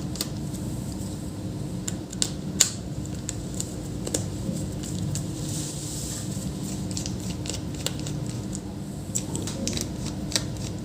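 Scattered small clicks and taps of hands and a tool working on an opened laptop's internals, the sharpest about two and a half seconds in, over a steady low hum.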